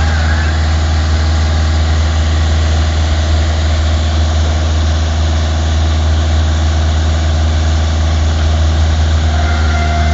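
A heavy engine idling steadily, a deep even hum with no change in speed.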